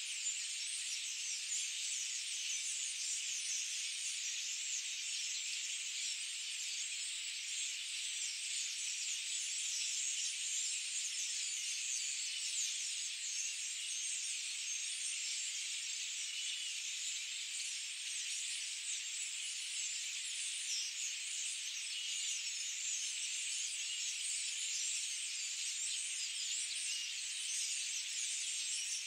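Steady high-pitched hiss, even in level, with no low sound beneath it.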